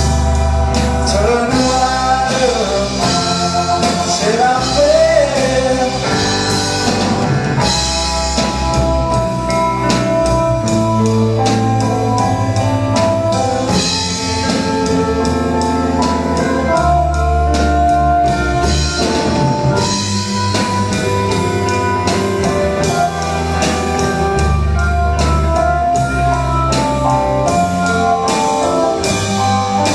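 Live rock band playing a slow, steady number: held keyboard notes carrying the melody over drum kit, bass and electric guitars, without lyrics being sung.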